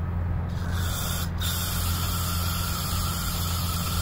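Aerosol carburetor cleaner hissing as it is sprayed into a small-engine carburetor to clear gummed, plugged passages: the spray starts about half a second in, stops briefly just after a second, then runs on steadily. A steady low hum runs underneath.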